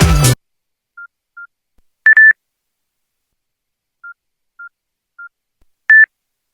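Nokia N95 ringtone made of sparse, short electronic beeps: soft single beeps at one pitch, broken up by much louder, slightly higher beeps, irregularly spaced with silence between them.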